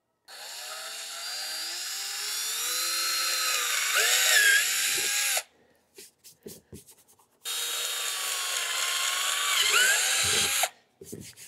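Power drill boring holes through the plastic bottom of a Pelican 1750 case: two runs, the first about five seconds and the second about three, the motor whine rising and then wavering as the bit bites. A few light knocks fall between the runs.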